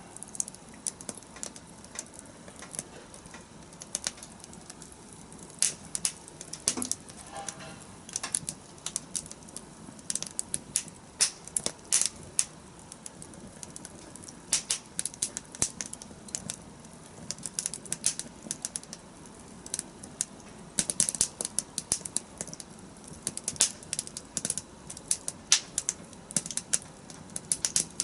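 Wood campfire crackling: irregular sharp pops and snaps, coming in quick clusters at times, over a low steady hiss of the flames.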